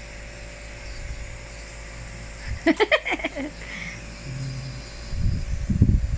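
Small electric nebulizer compressor running with a steady hum. About two and a half seconds in a child gives a short burst of quick voiced sounds, and near the end there are several low bumps.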